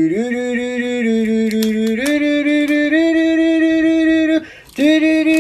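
A voice humming long, steady held notes that step upward in pitch every second or so, with a short break near the end.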